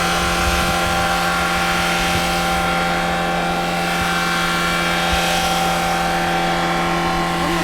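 Taxi's diesel engine in a runaway, running flat out at a steady high pitch that does not change as it feeds on its own engine oil instead of fuel, out of control and unable to be switched off.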